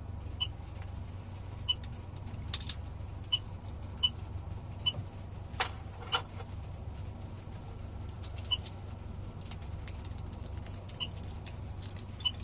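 Short, high-pitched electronic beeps, about a dozen at uneven spacing, with a few clicks among them, over a steady low hum.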